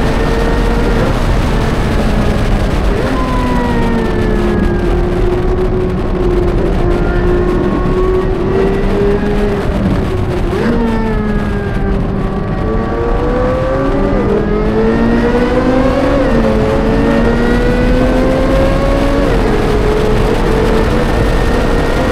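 Sports car engine being driven hard on a race track: the revs sink for several seconds off the throttle, jump with quick blips about halfway through, then climb again, dropping sharply at two gear changes before pulling steadily to the end.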